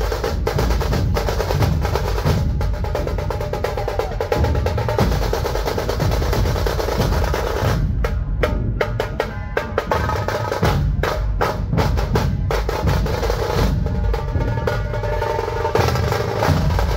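A dhol tasha troupe playing: big double-headed dhol drums beaten in a loud, driving rhythm under fast, rattling tasha rolls. The crisp rattle thins out for a moment about halfway through while the deep dhol beats go on.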